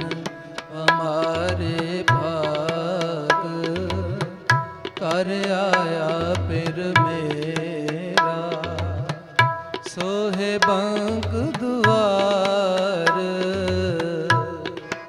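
Sikh kirtan music: a male voice sings a wordless, wavering opening line over sustained harmonium chords, with tabla strokes and deep bass-drum thuds keeping a steady rhythm.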